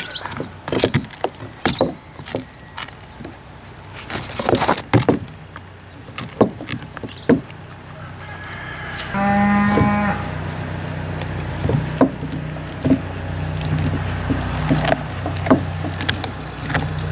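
Siberian husky gnawing a raw cow marrow bone, teeth scraping and clicking on the bone in quick irregular strokes. About nine seconds in, a cow moos once, a pitched call lasting about a second.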